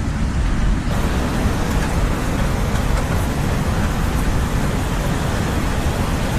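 Ocean surf: a steady roar of waves with a deep rumble, the hiss broadening about a second in as a wave washes in.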